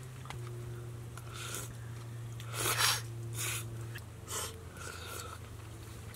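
Ramyun noodles and broth being slurped from spoon and chopsticks: a series of short breathy slurps, the loudest about three seconds in, over a steady low hum.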